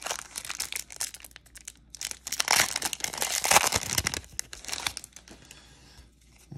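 Foil wrapper of a 1993 Donruss baseball card pack crinkling and tearing as it is ripped open by hand, loudest a couple of seconds in and dying away after about five seconds.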